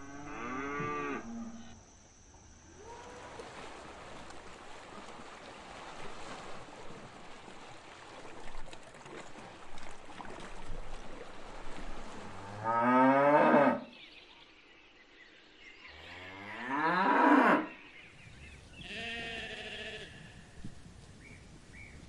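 Cattle mooing: a moo right at the start, then two loud, long moos rising in pitch about 13 and 17 seconds in, and a shorter, weaker one about 19 seconds in. Between the first moo and the loud ones there is a steady hiss.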